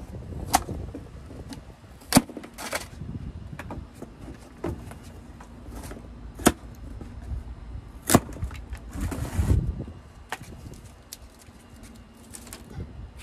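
Cardboard shipping box being cut open with a knife: several sharp snaps and clicks as the plastic strapping and tape are cut, with short bursts of cardboard scraping and rustling. Wind rumbles low on the microphone throughout.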